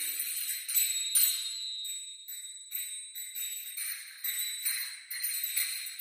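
Small hand-held metal percussion jingling with a bright, high ringing, shaken in uneven strokes about two a second.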